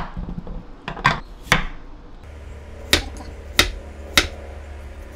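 Chef's knife slicing a peeled potato into thick rounds, each cut ending in a sharp knock of the blade on a wooden cutting board. About six cuts, irregularly spaced.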